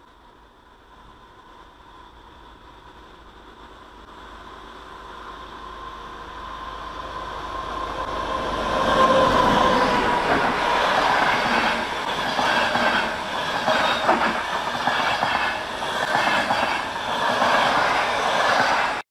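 Passenger train approaching and passing close by, growing steadily louder over about nine seconds, with a steady whine that dips slightly in pitch as the front goes past. The coaches then rush by with a dense rattle of wheel clacks on the rails, and the sound cuts off abruptly at the end.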